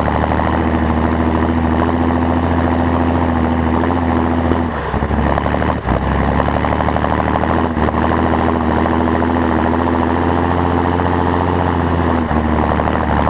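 John Deere 7530 tractor's six-cylinder diesel engine running steadily, with a few brief dips in level about five, six and twelve seconds in.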